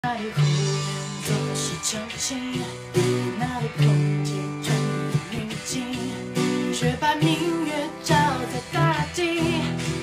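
A woman sings a Mandarin pop song and accompanies herself on a strummed acoustic guitar. The guitar chords come through strongly, and the voice is clearest in the last few seconds.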